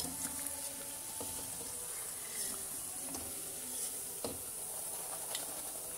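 Cauliflower pakoras frying in hot oil in a steel wok: a steady sizzle, with a few light clicks of a wire-mesh skimmer against the pan as the pakoras are scooped out.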